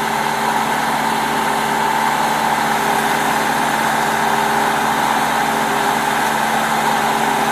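Semi-truck idling at the open cab door: an even, steady engine hum.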